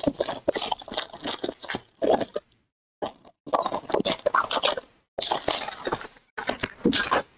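A foil trading-card pack wrapper being torn open and crinkled by hand, crackling in several bursts with short pauses between them.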